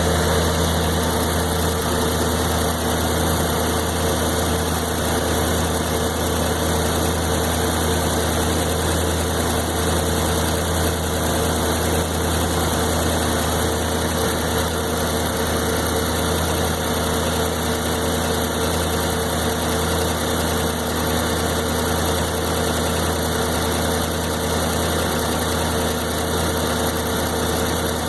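1993 Corvette's LT1 5.7-litre V8 idling steadily with no revving; the idle is rough, a stutter that also shows up when driving around town.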